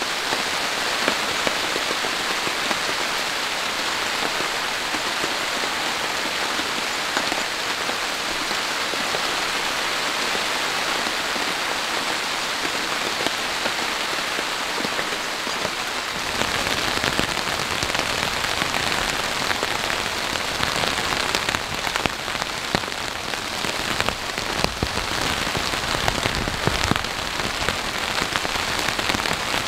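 Heavy rain falling steadily. About halfway through the sound becomes fuller and deeper, with separate heavy drops striking sharply.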